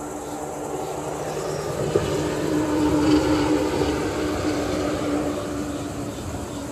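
A truck crossing the highway bridge overhead, its rumble swelling to its loudest about three seconds in and then fading as it passes.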